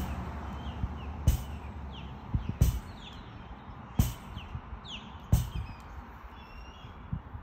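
Lacrosse wall ball against a rebounder net: a sharp thwack of the ball about every 1.3 seconds, five times, with a softer one near the end. Small birds chirp in the background.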